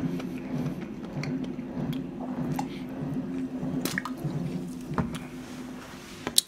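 Cola being drunk from a plastic bottle in gulps, with squishy liquid and swallowing sounds. A few sharp clicks come in the second half.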